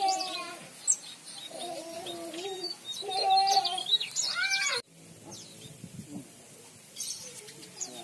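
Mugimaki flycatcher singing busily: quick high chirps and twittering trills. Lower wavering calls sound beneath them in the first half. The sound cuts off abruptly just before halfway, then fainter chirping carries on.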